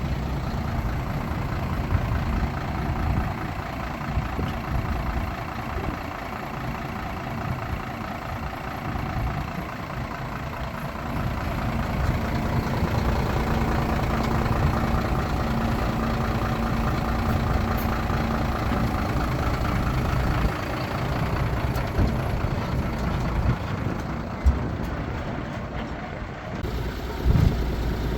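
Heavy earthmoving machinery, dump trucks and a bulldozer, running steadily, with a held engine tone for several seconds midway and two sharp clanks near the end.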